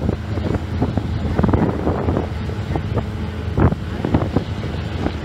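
Boat engine running steadily with a low even hum, with wind buffeting the microphone and irregular sharp gusts and knocks over it.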